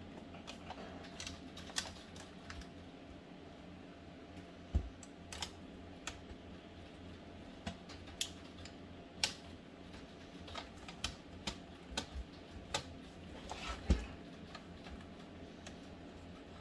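Irregular light plastic clicks and knocks from HP Pavilion 15 laptop parts being wiggled and worked loose by hand, with a couple of louder knocks about five and fourteen seconds in.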